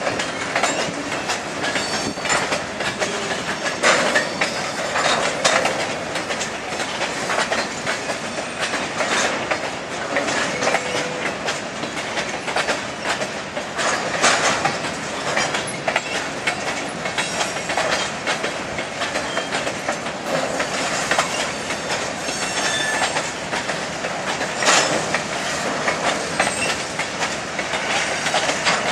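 Covered grain hopper cars rolling slowly past on jointed track, their wheels clicking and knocking over the rail joints and crossing in an irregular beat, with brief high squeals now and then.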